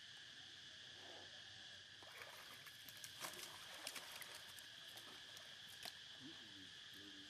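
Faint small splashes and water patter as monkeys swim and paddle, a quick run of little splashy ticks in the middle, over a steady high chirring of insects.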